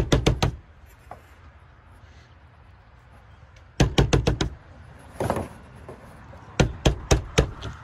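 A Nigerian Dwarf goat kid's small hooves clattering on a hollow plastic slide as it hops: quick bursts of sharp knocks at the start, about four seconds in and again near the end.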